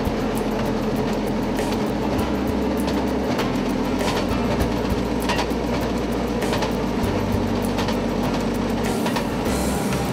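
Vintage railway track motorcar (speeder) running along the rails, heard from on board: steady engine and wheel noise with scattered sharp clicks as the wheels cross rail joints.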